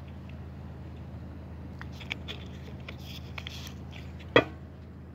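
Small metal clicks and clinks from handling the canteen's loose stopper and its chain, with one sharp click about four seconds in, over a steady low hum.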